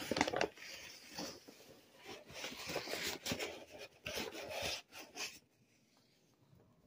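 Paper flour bag rustling and crinkling as its crumpled top is handled and opened, stopping about five seconds in.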